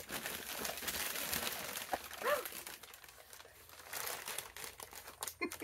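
Packing material crinkling and rustling as wrapped items are taken out of a box, busiest in the first couple of seconds and then thinning to a few light clicks and rustles. A brief murmur of a voice comes about two seconds in.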